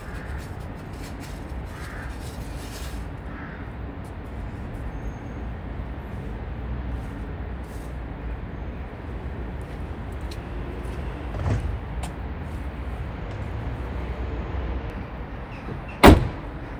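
A scraper rasping in short strokes over a car's windscreen, heaviest in the first few seconds, over a steady low engine rumble from the car warming up. A single sharp knock near the end.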